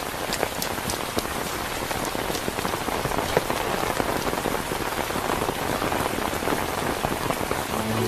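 Steady rain falling, with many scattered sharp drop hits.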